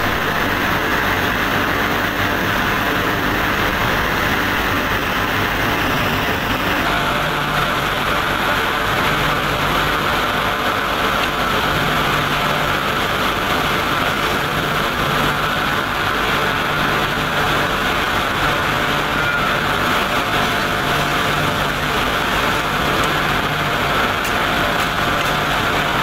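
Steady, loud industrial roar and hiss at a steel plant's continuous-casting ladle, with a faint low hum that comes and goes.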